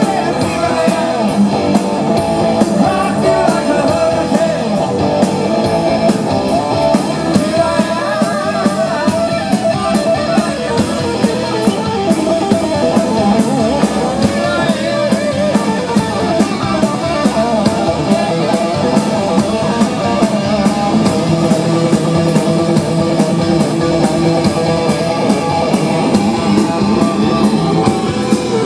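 Hard rock band playing live, with electric guitars over a steady driving drum beat and bass.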